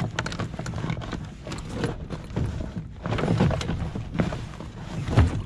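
A freshly caught fish being stowed in a bag on a kayak: rustling and irregular knocks and bumps, with a heavier thump near the end.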